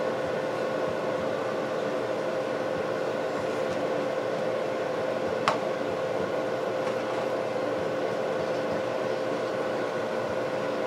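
A steady mechanical hum, as of a fan running, holding one constant tone, with a single sharp click about halfway through.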